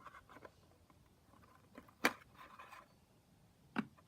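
Stick stirring glue in a small container: faint scraping and sticky handling noises, with two sharp taps, about two seconds in and again near the end.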